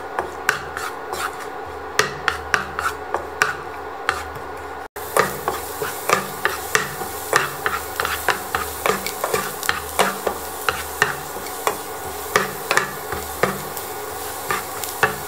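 Wooden spatula scraping and knocking against a nonstick frying pan in quick, irregular strokes, stirring minced garlic frying in oil. A steady low hiss runs underneath and grows louder after a brief break about five seconds in.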